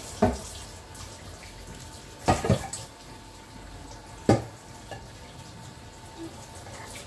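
Kitchen utensils knocking against cookware: four sharp knocks, two of them close together about two seconds in, over a steady hiss.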